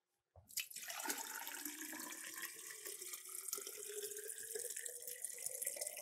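Water pouring from a plastic pitcher into a tall ceramic vase, starting about half a second in. The pitch of the filling rises steadily as the vase fills.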